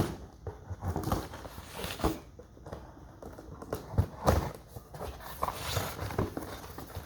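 Cardboard box and packing being handled: irregular knocks, taps and rustles, the sharpest about two and four seconds in.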